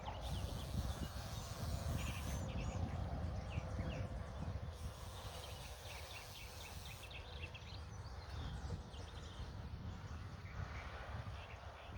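Wind buffeting the microphone in a steady low rumble, with small birds chirping repeatedly over it.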